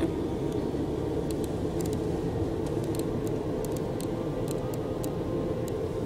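Steady road and engine noise inside a moving car's cabin.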